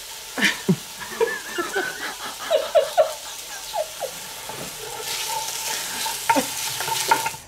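Chunks of beef sizzling as they brown in hot fat in a cast-iron Dutch oven, with a wooden spoon stirring and scraping them around the pot.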